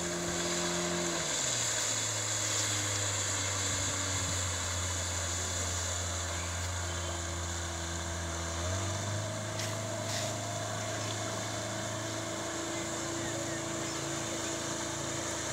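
Small motor boat's engine running steadily across the water, its note stepping down a little over a second in and back up again past eight seconds, as with changes of throttle.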